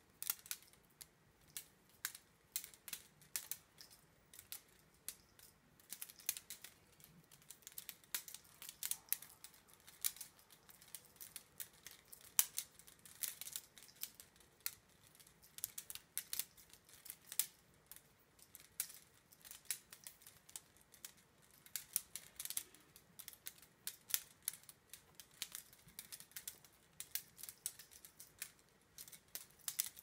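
Faint, irregular clicks and taps of a mechanical pencil knocking against the fingers as it is spun and twirled around the hand, sometimes several in quick succession.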